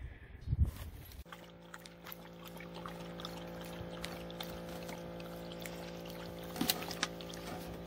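A dog licking and chewing a plastic water bottle: scattered crinkles and clicks of the plastic with wet licking, over a steady hum that starts about a second in. A low thump comes about half a second in.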